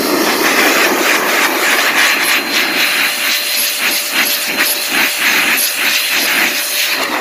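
Handheld electric air blower running, its motor whining steadily under a loud rush of air blown into a laptop's fan vent, the rush surging and fading a few times a second. At the very end it is switched off and the whine starts to drop.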